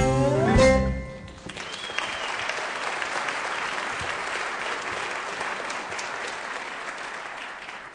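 A song's closing notes end about a second in, and an audience applauds, the clapping dying away near the end.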